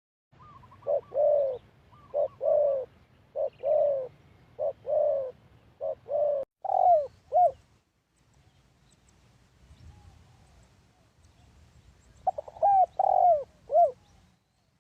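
Spotted dove cooing: a run of short-then-long paired coos for about seven seconds, then after a pause another short phrase near the end.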